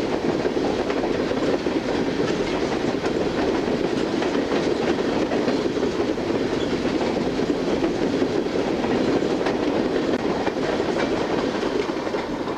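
CSX train of open-top coal hopper cars rolling past, a steady rumble of steel wheels on rail with clicks of the wheels running over the track.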